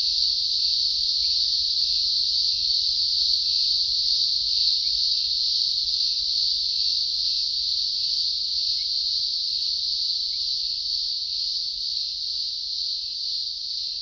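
Chorus of cicadas in a constant, high-pitched drone, easing off slightly near the end.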